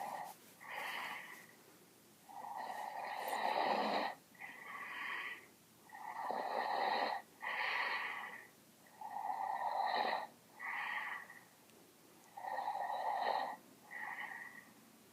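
A sleeping person snoring loudly. There are about four snore cycles, one roughly every three seconds, each a longer lower snore followed by a shorter, higher second sound.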